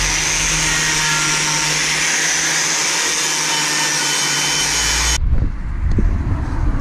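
Bosch 900 W angle grinder running steadily against a Land Rover Defender axle casing, stripping off the remaining old paint, with a whine of steady tones over the grinding noise. It cuts off abruptly about five seconds in, leaving low rumbling and a few light knocks.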